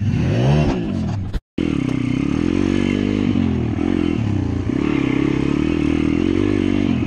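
Dirt bike engine heard from the rider's seat, revving up and down over rough ground. The sound drops out for a moment about a second and a half in, then the engine runs on with small rises and falls in revs.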